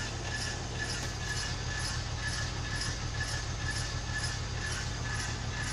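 Rear driver-side wheel of a 1999 BMW 323i turning in drive with the car raised, making a rhythmic grinding that repeats a couple of times a second over a steady low drivetrain hum. The owner suspects a warped brake rotor.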